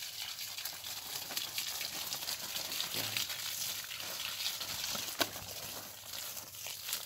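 Garden hose spraying water onto leafy plants and soil: a steady hiss with scattered small ticks, and one sharper tick about five seconds in.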